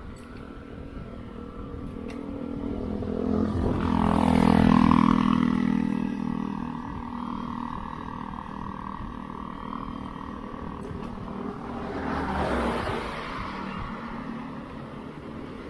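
Motor vehicle traffic passing close by: engines running steadily, one vehicle rising to its loudest about four to five seconds in and another swelling around twelve seconds in.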